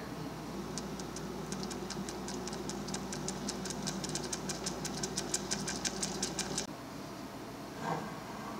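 Butter, brown sugar and cream melting in a saucepan on a hob, crackling with quick, irregular pops that grow denser and louder, over a low steady hum. The crackling stops abruptly about two-thirds of the way through, and a single soft knock follows near the end.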